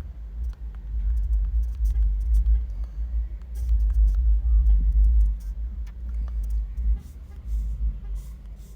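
A low rumble that swells and fades, with scattered faint clicks.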